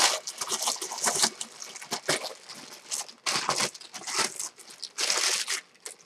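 Clear plastic packing bag crinkling in irregular bursts as a bench power supply is handled and slid out of it.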